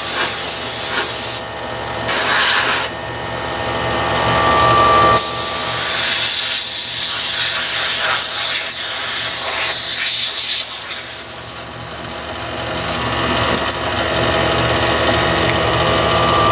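Compressed air hissing from a blower nozzle in blasts: a short one at the start, a brief one about two seconds in, then a long blast of about six seconds from about five seconds in. Under it, a small oil-free air compressor runs steadily.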